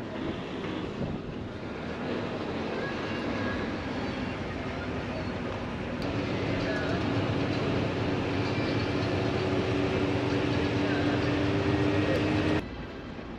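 A bus's engine running on the move, with steady road and rattle noise. An engine hum grows stronger about halfway through, and the sound drops off suddenly near the end.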